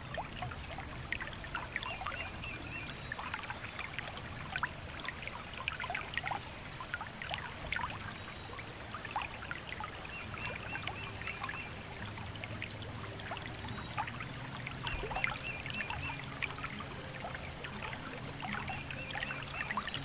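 Recorded stream ambience: water trickling and burbling, with many small droplet clicks and a high chirping trill repeated every few seconds. Soft, low sustained music notes come in about halfway.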